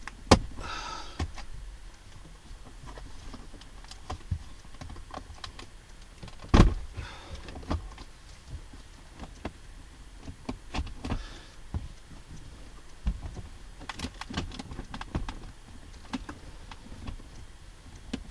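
Rear centre console trim of a Mazda6 being pulled loose by hand, its plastic clips letting go. There are sharp snaps about a third of a second in and again near the middle, with scattered smaller clicks and plastic knocks in between.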